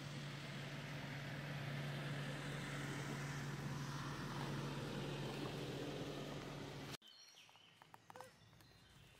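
A steady engine hum with broad background noise, which cuts off abruptly about seven seconds in. It is followed by quiet outdoor ambience with a few faint clicks and short chirps.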